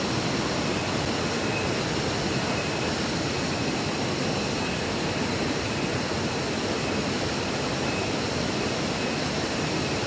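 Shallow spring-fed stream running over rocks and small cascades: a steady, even wash of water noise.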